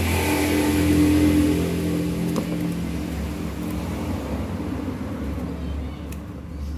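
A motor vehicle engine running steadily, loudest about a second in and then slowly fading.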